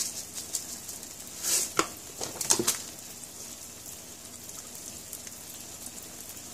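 Eggs frying in a pan with a faint, steady sizzle. A few sharp clicks and knocks come in the first three seconds.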